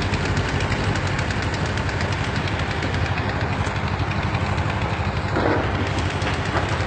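Heavy diesel engine of construction machinery running steadily with an even low hum, and a brief rush of noise about five and a half seconds in.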